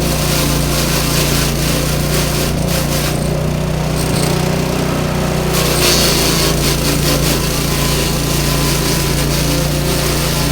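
Grass chopper machine running steadily: a constant low hum with a dense crackle over it, brighter for a couple of seconds just past the middle.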